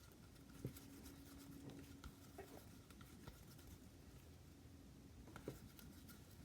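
Near silence, with faint rubbing and a few light taps from hands rolling a ball of modeling dough on a table.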